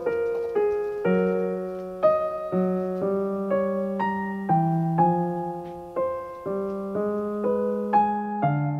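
Background piano music: a gentle tune with notes and chords struck about twice a second, each fading away before the next.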